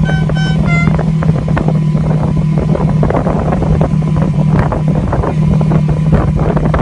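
ATV or UTV engine running at a steady speed, a loud even drone, with wind buffeting the microphone and frequent short knocks and rattles from the ride.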